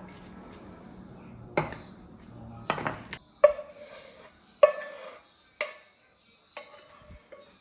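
Dishes and cutlery clinking in a kitchen: about six sharp knocks and clinks, some with a short ring, spaced a second or so apart.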